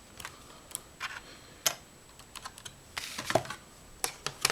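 Scattered light clicks and taps of the laptop's plastic parts being handled, with a short scraping rustle about three seconds in and a quick run of clicks near the end.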